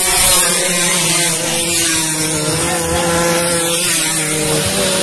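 Several racing scooters (pasolas) running flat out down a dirt strip, their small engines making a steady buzz that holds nearly one pitch.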